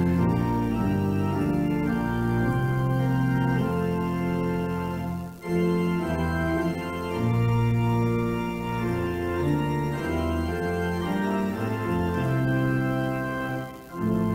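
Church organ playing slow, held chords in phrases, with two brief pauses, about five seconds in and near the end.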